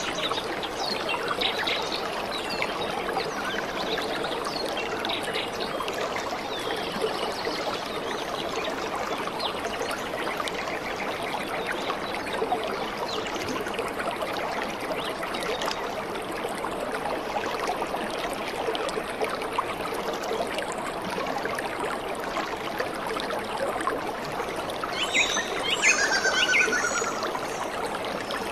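Stream and waterfall water running over rocks, a steady rushing. A short high-pitched chirping sound rises over it a little before the end.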